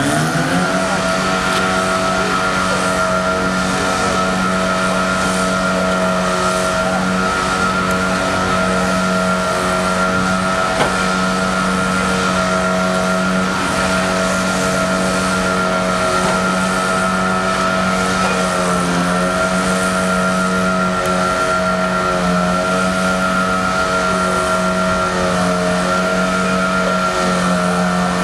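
Detroit Diesel engine of a Link-Belt crane drill revving up in the first half-second, then running hard at steady high revs: a loud, even drone with a high whine over it.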